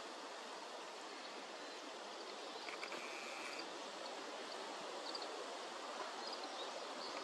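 Steady outdoor background hiss with a few faint, short high chirps and a brief faint rattling trill about three seconds in; the perched crow does not call.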